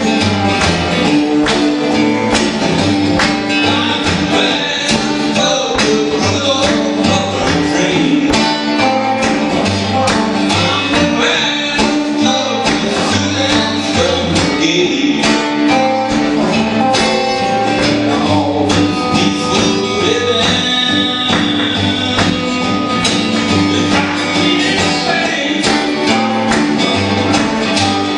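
Two acoustic guitars played together live, a steady strummed and picked rhythm running without a break.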